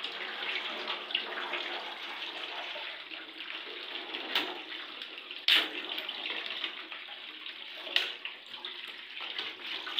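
Tap water running steadily over a frozen pack of minced beef to loosen it. Three sharp knocks come through, the loudest about halfway through.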